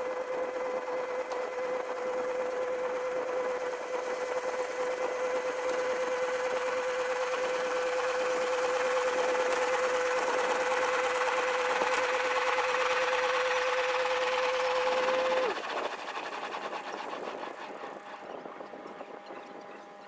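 A 30 hp Kubota compact tractor runs a PTO-driven small square baler at steady high revs, making a constant whine that grows louder as it approaches. About fifteen seconds in, the pitch drops and the sound falls away as the engine throttles down.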